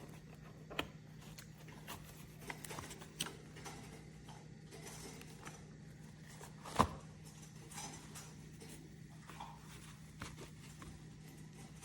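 Quiet room tone with a steady low hum, broken by scattered small clicks and taps, one sharper click about seven seconds in.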